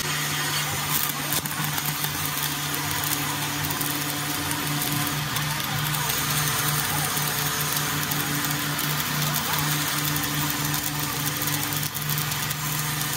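Stick welding on a crack in a truck front axle: the electrode arc crackles and sputters steadily over a steady low hum.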